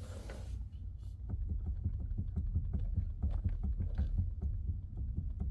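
Mazda CX-5 steering knocking and clicking in quick, irregular ticks as the wheel is turned with the engine off, picking up about a second in. The mechanic traces the noise to the steering intermediate shaft (steering coupling) or the steering rack, and plans to lubricate the coupling.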